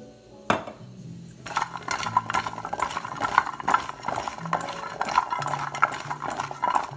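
Oiled carrot sticks being tossed by hand in a stainless steel bowl: a dense run of wet squelching and small clicks of carrots against the steel, starting about a second and a half in. A single knock comes about half a second in.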